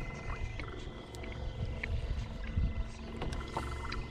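Water lapping against a canoe hull under a steady low rumble, with a few scattered faint clicks.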